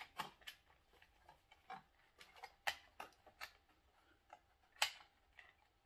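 Light, irregular plastic clicks and taps from handling and fitting a small plastic compartment cover on the underside of a toy RC car, with a few sharper snaps among softer ticks.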